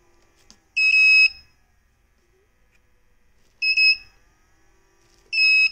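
Three short, high electronic beeps, each about half a second long, from the power setup as the cable bundle of a server power distribution board is flexed. Each beep marks the power cutting out and back in: an intermittent break in the board's wiring or solder.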